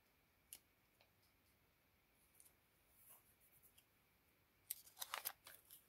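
Near silence, with a few faint isolated clicks and, near the end, a brief run of light clicking and rustling from paper being handled.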